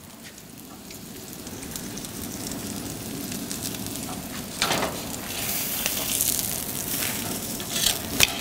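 Thick steak sizzling on the hot grate of a propane infrared broiler, the sizzle slowly growing louder. A few sharp metal clinks come about halfway through and again near the end.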